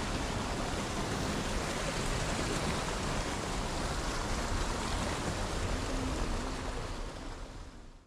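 Car driving slowly along an unpaved dirt road: a steady rushing of tyres and wind with a low rumble, fading out near the end.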